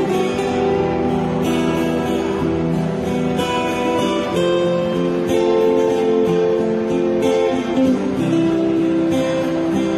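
Instrumental music: an acoustic guitar strumming chords, with long held melody notes changing every second or two and no singing.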